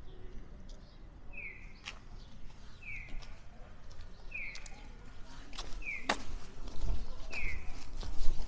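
Electronic bird-like chirps of a Japanese audible pedestrian crossing signal, one short chirp about every second and a half, evenly spaced. The chirps signal that the crossing light is green.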